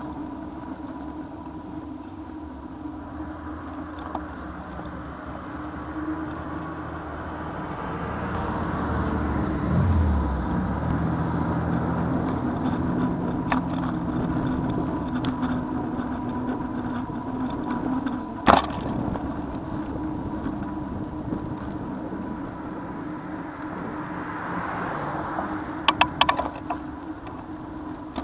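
Road traffic heard from a moving bicycle. A motor vehicle's engine grows louder and passes from about eight to eighteen seconds in, its pitch dropping briefly near ten seconds. A single sharp knock comes a little after eighteen seconds, and a short cluster of rattling clicks follows near the end.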